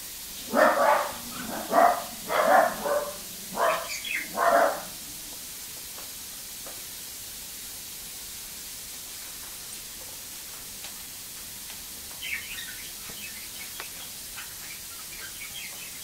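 Parrot calls: a run of about six short, harsh squawks in the first five seconds, then softer short chirps and clicks near the end.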